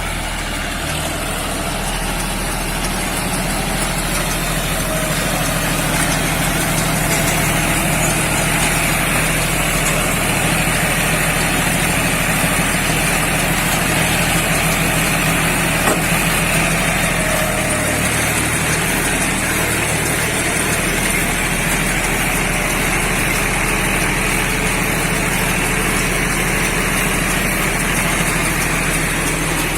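Engine running steadily at an even speed, the drive of a round straw baler at work.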